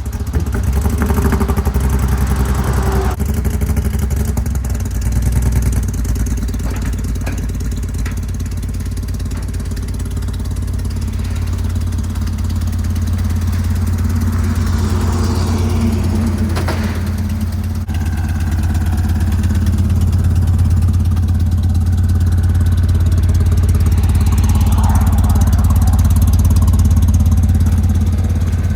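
Forklift engine running steadily with a low, even hum, growing a little louder in the second half.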